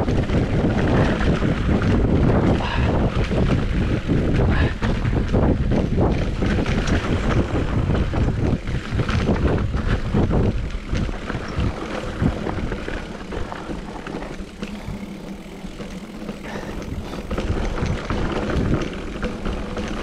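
Mountain bike riding noise on a GoPro: wind rushing over the microphone and the bike clattering and knocking over rough trail, easing off and quieter from about halfway through.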